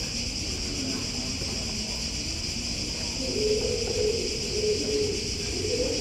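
Steady high-pitched drone of cicadas in the courtyard trees over a low background rumble. A faint wavering tone comes and goes from about halfway through.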